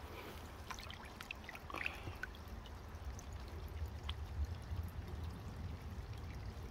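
Pond water trickling and lapping. Small splashes and drips come in the first couple of seconds as a hand is dipped into the pond.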